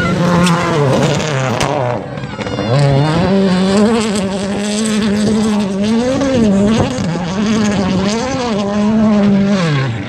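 Rally car's turbocharged four-cylinder engine at full stage pace on a dirt road. The revs climb and drop again and again with gear changes and lifts, and a sharp fall comes near the end.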